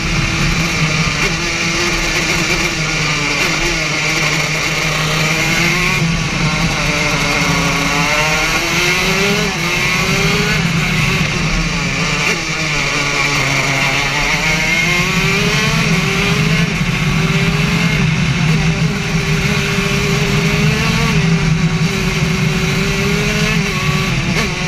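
Racing kart engine heard from on board at full race pace, its note falling as the kart slows for corners and climbing again as it accelerates out, several times over.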